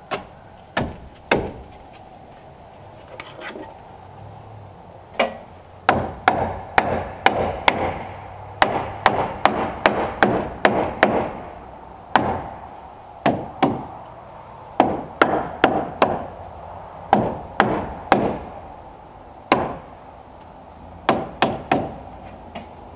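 Hammer driving nails into wooden strips on a cabin wall: groups of several sharp blows with short pauses between, most frequent in the middle stretch.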